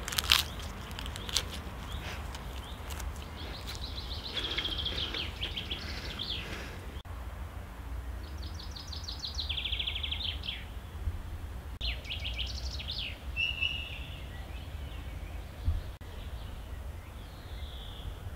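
Small songbirds chirping and trilling in short phrases, over a low steady background rumble. Right at the start, a short crunch as a day lily flower is bitten.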